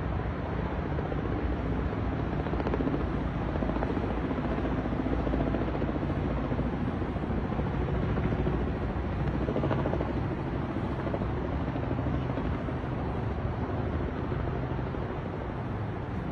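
Small light helicopter flying past overhead, its rotor giving a steady rapid beat over the drone of its engine.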